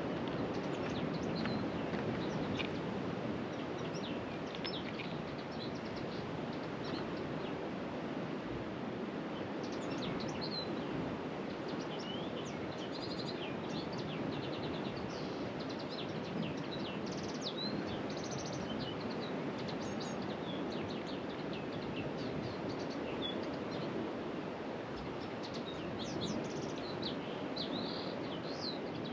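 Small birds chirping and singing in short, high calls scattered throughout, over a steady rushing background noise.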